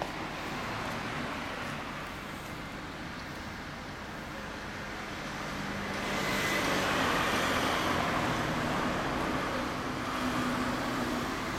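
Steady vehicle and traffic noise that swells for several seconds from about halfway through, then eases off.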